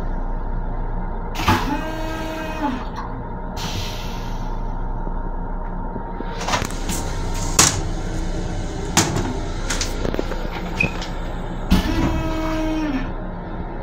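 Long Island Rail Road M7 railcar running, a steady low rumble in the restroom. Two short pitched tones ring about ten seconds apart, and a few sharp knocks and rattles come in between.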